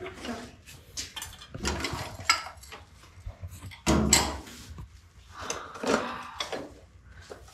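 Irregular knocks and clatter of dishes and plates being handled and set down.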